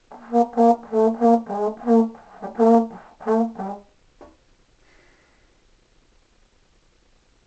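Trombone playing a quick run of about a dozen short tongued notes, mostly on one pitch with a few lower ones. A single short note follows, then the playing stops.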